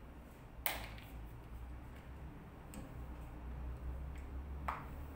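Two sharp clicks from a flat iron's plates snapping shut on hair, one about a second in and a softer one near the end, over a low steady hum.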